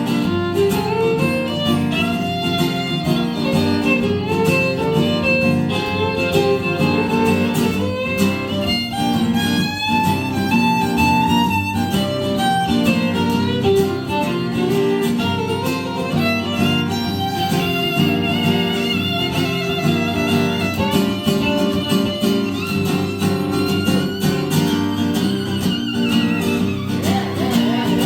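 Fiddle playing a melodic instrumental break over acoustic guitar accompaniment, with the fiddle line sliding down in pitch near the end.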